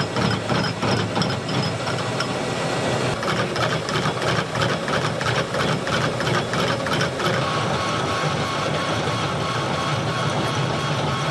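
Harrison L6 metal lathe running while a high-speed steel tool takes a heavily interrupted cut on an uneven plasma-cut part, making a rapid, continuous knocking as the tool keeps striking and leaving the rough surface. The sound settles to a steadier run after about seven seconds.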